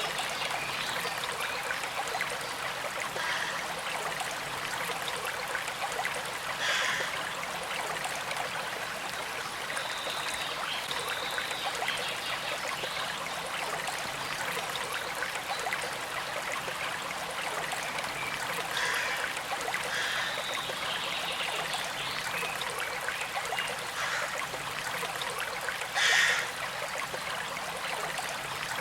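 Gentle creek flowing and trickling steadily, with a few brief louder surges of water, the loudest about 26 seconds in.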